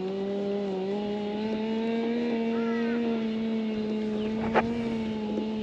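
A steady, low mechanical drone with a slightly wavering pitch, with a short chirp about halfway through and a sharp click near the end.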